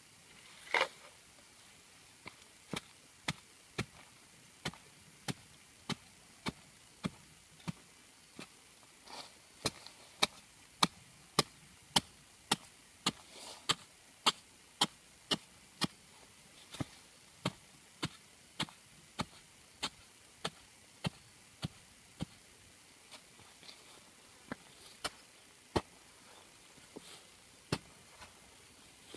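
Hoe blade chopping into dirt, steady strokes about two a second as a hole is dug, with a short pause about three quarters of the way through before slower strokes resume.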